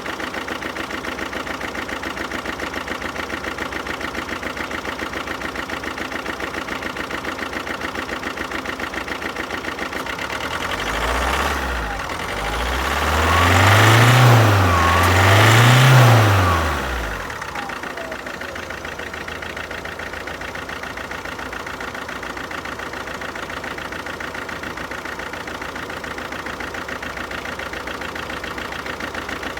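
Alfa Romeo Giulietta 1.6 diesel engine (940A3000) idling with a regular pulsing beat. About eleven seconds in it is blipped once, then revved up twice in quick succession, and it settles back to idle. One cylinder has no compression, which the owner puts down to a valve fault, a piston problem or a leaking head gasket.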